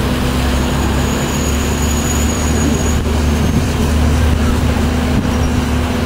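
Steady traffic noise from a congested city street: a continuous low rumble of car engines.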